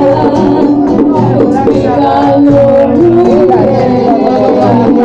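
Live band playing Latin American music, with singing and acoustic guitar over a steady low beat.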